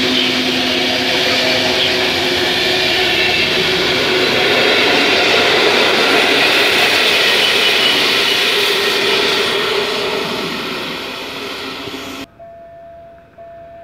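PKP Intercity passenger coaches running close past on the rails: a loud, steady rumble and clatter of wheels on track, fading from about ten seconds in. Near the end the sound cuts to a much quieter scene, where a level-crossing warning signal beeps repeatedly.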